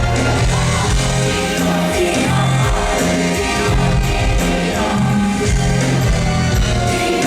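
Live pop song performed in concert: a woman singing over full band accompaniment with choir-like backing vocals and a steady repeating bass line.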